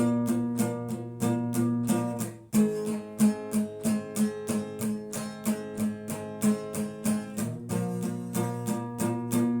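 Instrumental break of a song: guitar strumming chords in a steady rhythm of about three strokes a second, with a brief gap about two and a half seconds in before the chords change.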